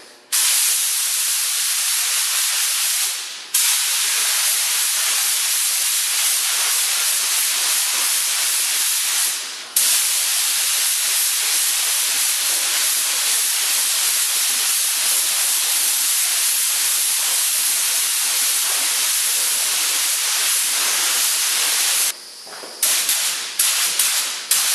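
Compressed-air spray gun hissing steadily as it sprays two-part epoxy primer onto an engine block, the trigger let off briefly twice, then pulled in several short bursts near the end.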